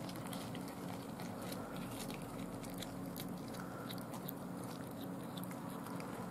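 A cat chewing a raw day-old chick: many small crackling crunches of bone and flesh, scattered irregularly, over a low steady hum.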